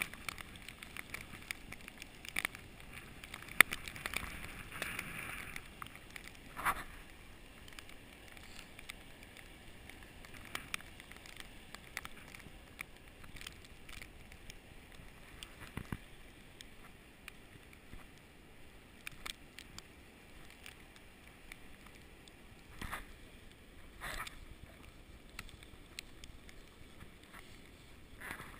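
Wind of a snowstorm blowing steadily, with scattered light ticks and crunches that are busier and louder over the first few seconds, and a few single louder crunches later on.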